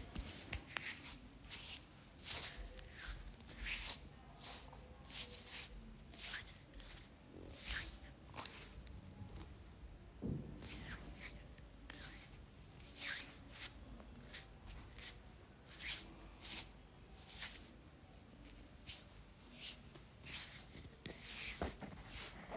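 Hands rubbing and pulling through hair during a head massage: an irregular run of short, crisp rustles and swishes, about one or two a second.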